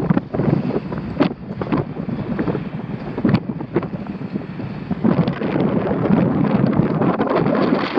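Wind buffeting the microphone in rough, irregular gusts, heavier from about five seconds in.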